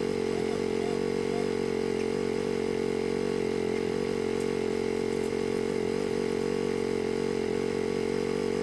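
Utility vehicle engine running at a steady speed, a constant drone without change.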